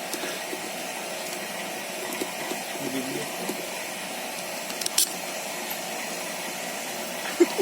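Refrigeration vacuum pump running steadily, evacuating a split-type aircon system during a reprocess after a freon leak. A sharp click about five seconds in.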